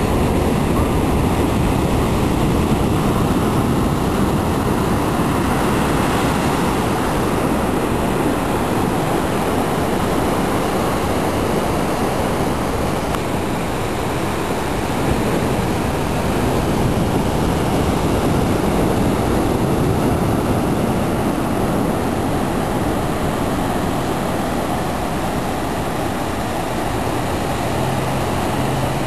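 Ocean surf washing onto a sandy beach: a steady roar with a low rumble that swells and eases slightly.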